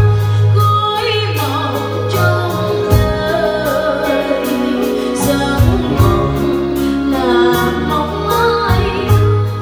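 A woman singing into a microphone with a live band behind her, over a steady bass and an even cymbal beat.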